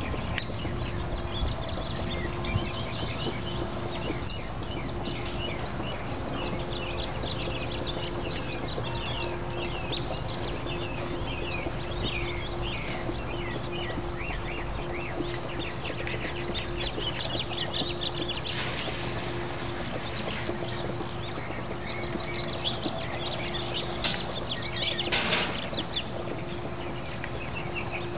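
Many small birds chirping and twittering in quick, irregular calls, over a steady low hum and low wind rumble on the microphone.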